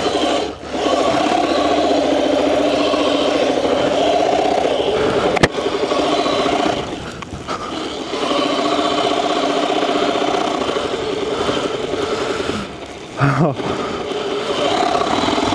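Sur Ron electric dirt bike's motor whining under throttle as it rides through deep snow. The whine is steady and wavers slightly, easing off briefly about seven seconds in and again near the end. There is one sharp click about five and a half seconds in.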